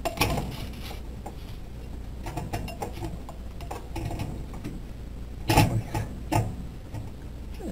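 A plate being handled and set down on a microwave oven's glass turntable: scattered light clicks, then two sharp knocks about five and a half and six and a half seconds in.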